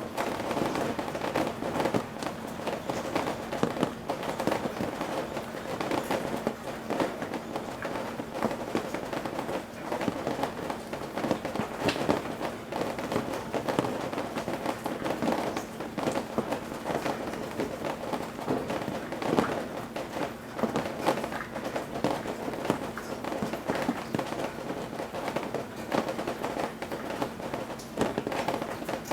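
Rain on the eaves of a roof: a dense, irregular patter of drops and drips at a steady level.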